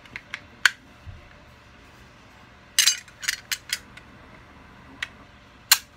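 Small hard objects clinking and knocking as e-liquid bottles and vaping gear are sorted through on a desk: a few light clicks at first, a cluster about three seconds in, and a sharper knock near the end.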